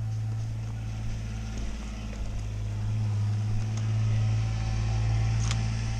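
Engine running steadily with a low, even hum that dips briefly about two seconds in and swells a little in the middle, with a single sharp click near the end.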